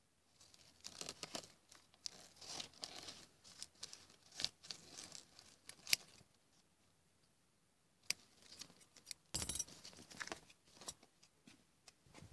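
Scissors cutting open a plastic sachet of talcum powder: crinkling of the packet with sharp snips and clicks over the first six seconds. After a short pause, more rustling and handling knocks.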